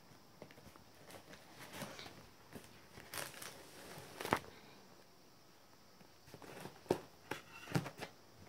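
Scissors slitting the packing tape along a cardboard box's seam, with scattered short clicks and scrapes of tape and cardboard being handled. The sharpest click comes a little past the middle, and several more come close together near the end.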